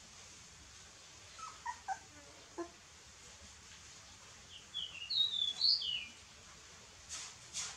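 Young puppies squeaking and whimpering as they jostle at their mother's teats to nurse: a few short squeaks about one and a half to two and a half seconds in, then a loud cluster of high-pitched squeals around five seconds in. Rustling from the puppies scrambling near the end.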